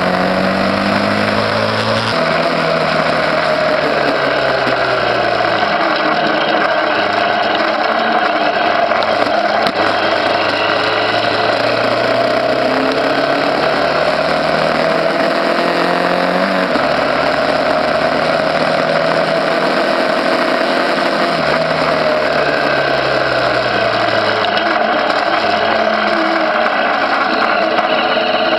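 Small motorcycle engine running under way, its pitch climbing and then dropping sharply several times as the rider accelerates and shifts gears, over steady wind and road noise.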